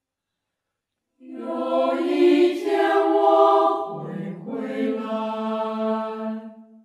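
Slow, chant-like vocal music with long held sung notes. It comes in about a second in after a brief silence and changes pitch near the middle.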